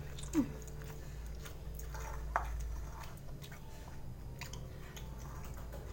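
A person chewing a mouthful of egg with chili sauce close to the microphone: small wet squishing and smacking sounds with scattered clicks, over a low steady hum.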